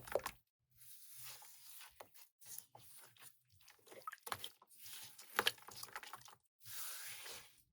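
Intermittent gritty scraping and crunching, with several sharp clicks; one of the louder scrapes runs near the end.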